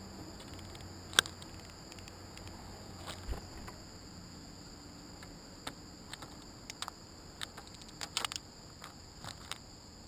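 Steady late-summer chorus of crickets, a high-pitched shrill in two bands, with a scatter of sharp close taps and clicks: one loud tap about a second in and a run of lighter ones in the second half.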